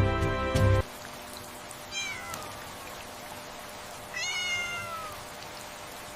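Background music cuts off about a second in, then a cat meows twice, each call falling in pitch, the second one longer, over a faint steady hiss.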